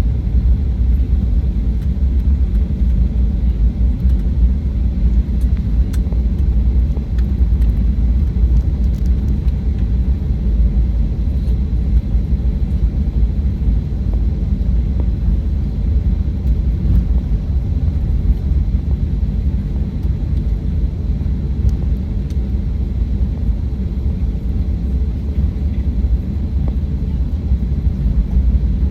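Cabin noise of a Boeing 737-800: a steady low rumble from the engines and airframe.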